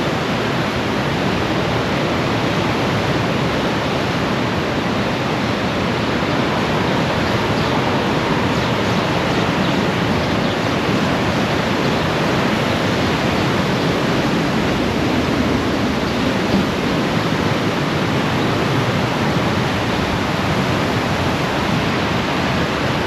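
Steady rush of a swollen river in flood, its water running high and fast.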